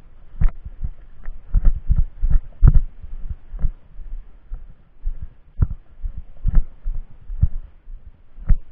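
Heavy, uneven thumps of running footfalls jolting a body-worn camera, about one or two a second, with the loudest in the first three seconds.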